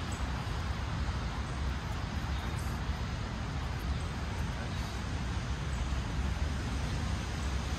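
Steady outdoor background noise: a low, fluctuating rumble of wind on the microphone mixed with city traffic, with no distinct events.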